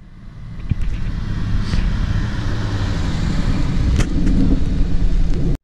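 Ford Mustang GT's 5.0-litre V8 approaching and driving past, its engine and exhaust rumble growing louder over the first second or so as the car nears, then staying loud as it passes close by.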